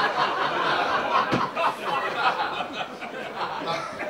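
Audience laughing and chuckling, the laughter dying down toward the end, with a single thump a little over a second in.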